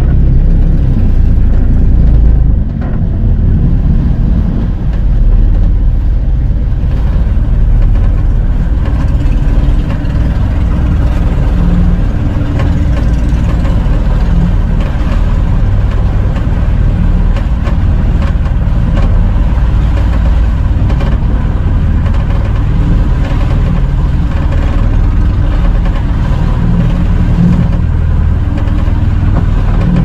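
Outrigger fishing boat's engine running steadily while the boat is under way at sea.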